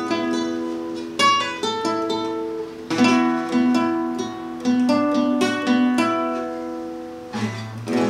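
Nylon-string classical guitar fingerpicked: a run of single plucked notes and broken chords, with a couple of chords struck near the end and left ringing.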